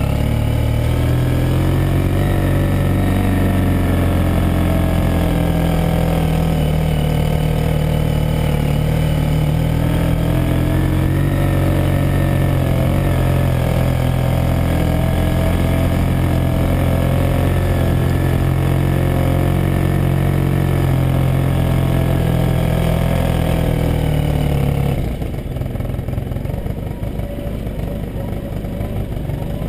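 Yamaha Super Tenere's parallel-twin engine running steadily at low revs as the motorcycle rides along a dirt track, its note rising and falling slightly. Near the end the engine note drops away and a quieter, rougher noise remains.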